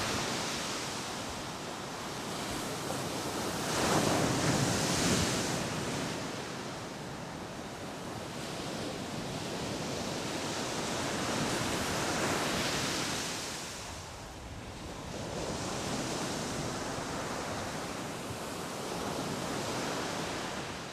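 Ocean surf: a steady wash of breaking waves that swells and ebbs slowly several times.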